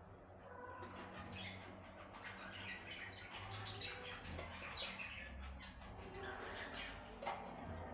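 Budgerigar chatter: a dense run of quick chirps and warbling notes, with one brief tap near the end.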